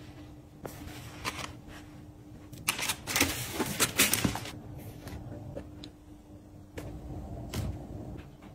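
Tissue paper rustling and crinkling as fluffy snow boots are lifted out of a gift box, loudest in a burst around the middle, with a few light knocks as the boots are handled and set down.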